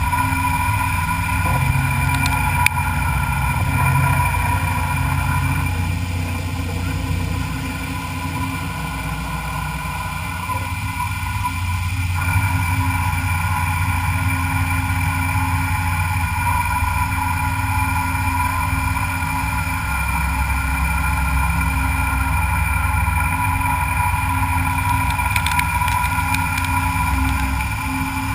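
Metalworking machine tool running steadily while machining a metal frame part: a continuous motor hum with several steady whining tones, the sound shifting slightly partway through.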